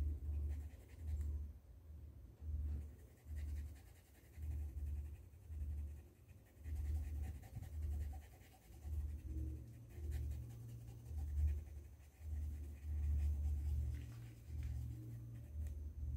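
Paintbrush strokes of acrylic paint on a cotton dish towel laid on a table: a steady run of dull low knocks, about one or two a second, with faint scratching of the bristles on the cloth.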